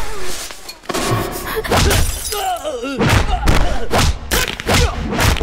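Film fight sound effects: a rapid run of heavy punch and body-hit impacts with a crash of something breaking, mixed with short wavering cries.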